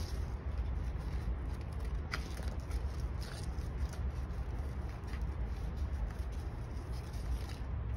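Steady low background hum with a few faint scattered clicks and rustles, like paper being handled.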